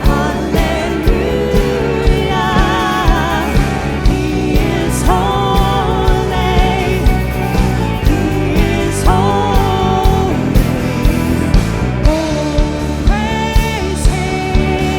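A contemporary worship band playing a song with a steady drum beat, with singing held over it in long, wavering notes.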